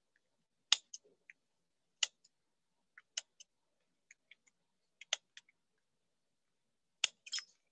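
Kitchen shears snipping through raw lobster shell: a series of sharp clicks and cracks, irregularly spaced about a second apart.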